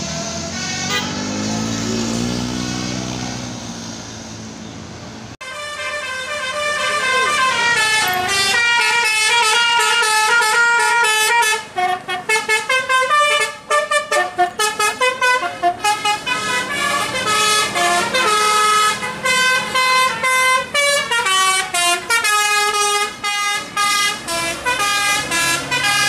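Basuri "telolet" musical horn on an Indonesian tour bus playing a melody of loud stepped notes, turning into short, quick chopped notes about halfway through. Before it starts, a bus engine passes with its pitch rising and falling.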